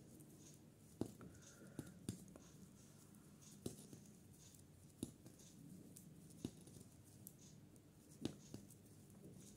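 Thin metal knitting needles clicking against each other as stitches are knit along a row of wool: about seven faint, sharp clicks at irregular intervals.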